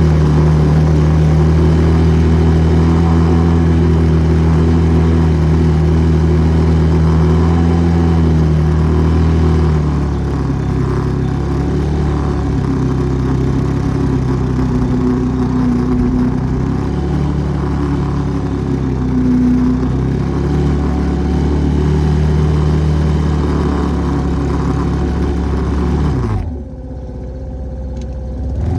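ATV engine running at steady throttle, easing off a little about ten seconds in, then dropping sharply toward idle near the end before starting to pick up again.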